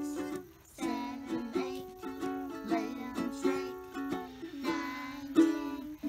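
Background music: a light tune on a plucked string instrument, notes picked in a steady rhythm, with a brief gap about half a second in.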